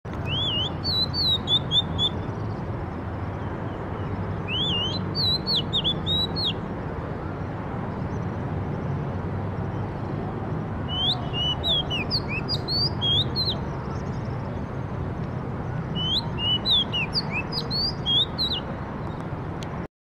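Oriental magpie-robin singing: four bouts of quick, varied whistled phrases, with pauses of a few seconds between them, over a steady low background rumble.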